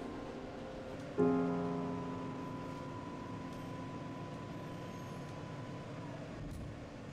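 Keyboard music: a piano-like chord struck about a second in and left to ring out, one high note lingering, over the steady rumble of a moving subway car.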